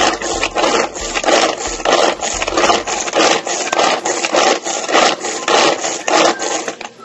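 Manual pull-cord food chopper being pulled over and over, its blades spinning through garlic and onion in the plastic bowl: a rapid run of strokes, about three a second, that stops just before the end.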